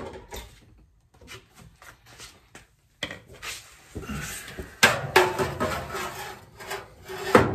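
Furnace blower assembly being worked out of its sheet-metal cabinet: light clicks and handling at first, then louder, continuous scraping and rubbing from about three seconds in, with a couple of sharp knocks.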